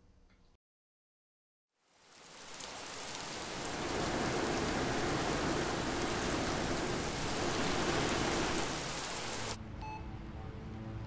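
A steady hiss of falling water, like rain, fades in about two seconds in after near silence and holds evenly. Near the end its high part cuts off and soft music with held notes comes in.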